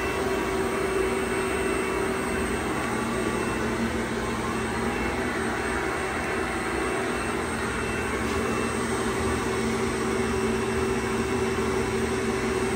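Steady machine noise, a continuous whirring hum with a few faint steady tones running through it and no breaks.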